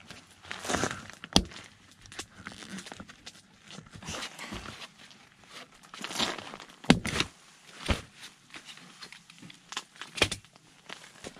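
A camping cot being assembled: several sharp clicks and knocks as its aluminium poles and leg fittings are pressed into place, with rustling of the cot fabric and groundsheet in between.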